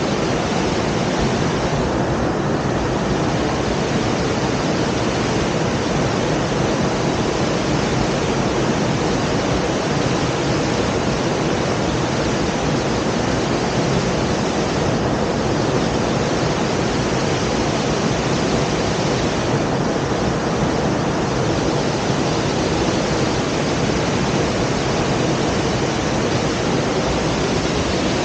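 Steady rush of falling water from a waterfall, an even roar that holds unchanged throughout.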